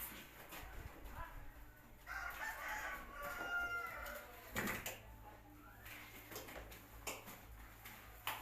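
A rooster crowing once, a long call of about two seconds with a held high note near its end, over a steady low hum and a few sharp knocks.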